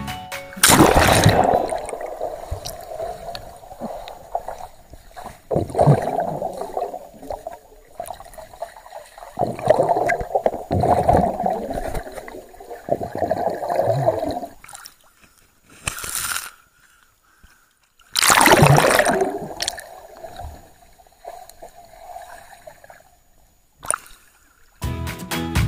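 Lake water sloshing and splashing against a waterproof action camera as it bobs at the surface and dips under, in irregular surges a few seconds apart with a quiet stretch near the middle.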